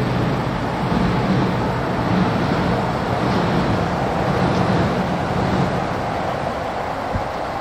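Street traffic: cars running and passing, a steady rumble of engines and road noise that eases slightly near the end.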